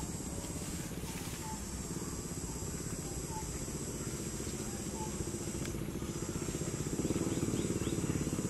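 A small engine running steadily, getting louder about seven seconds in, with a faint steady high hiss and a few faint short chirps.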